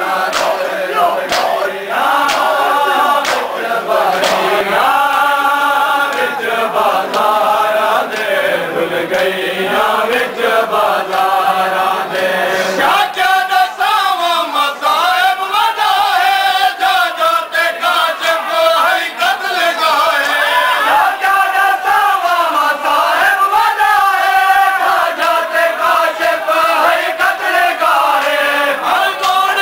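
A crowd of men chanting a Shia mourning lament (noha) together, with a steady beat of hand slaps from chest-beating (matam) running under the chant. About halfway through, the chanted line shifts to a new melody.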